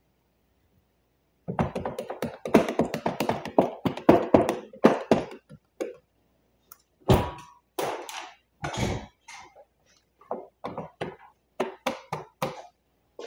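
Plastic squeegee working paint protection film down on a wet wooden bench top: a dense run of knocks and scraping strokes starting about a second and a half in, then shorter, scattered strokes.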